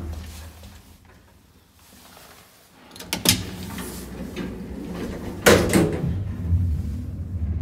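Soviet MLZ passenger elevator: two loud mechanical clunks, the first about three seconds in and a longer clattering one about five and a half seconds in, typical of its doors and machinery. A low hum runs between and after them.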